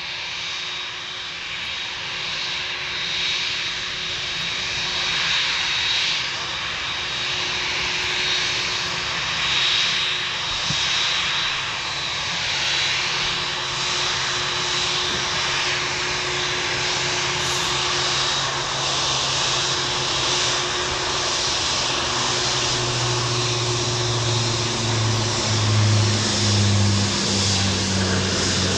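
Boeing 787 jet engines at low taxi power: a steady whine over a broad hiss. Deeper hums come in and grow louder over the last few seconds.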